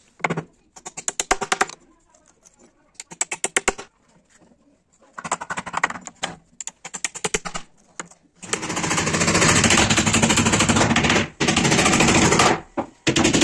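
Claw hammer tapping nails into pine battens in four quick runs of blows. From about eight and a half seconds a loud power tool runs with a continuous rapid rattle, cutting out briefly twice near the end.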